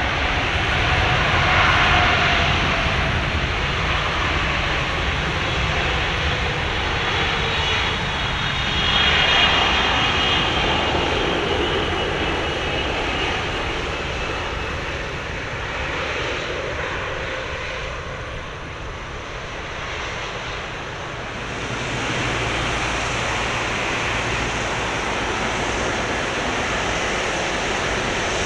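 Boeing 777-300ER's twin GE90-115B turbofans on landing approach: a steady jet roar with engine whine whose pitch falls as the airliner passes, loudest about two and nine seconds in.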